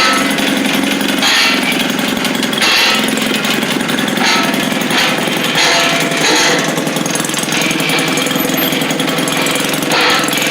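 Maytag Model 72 twin-cylinder two-stroke washing-machine engine running with a rapid, even popping beat, its level swelling and dropping about every second and a half. The owner thinks it is struggling to get fuel.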